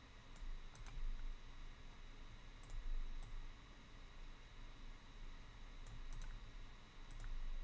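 Computer mouse clicks: about ten short sharp clicks, some in quick pairs, over a faint low hum.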